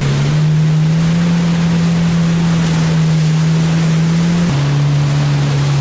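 Jet ski engine running at speed over a steady rush of wind and water. The engine note drops a little about four and a half seconds in.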